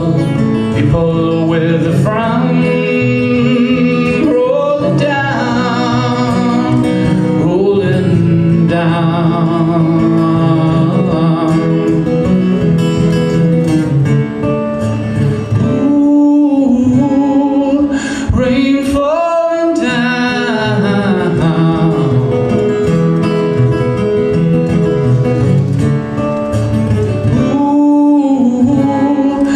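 A man singing while accompanying himself on acoustic guitar.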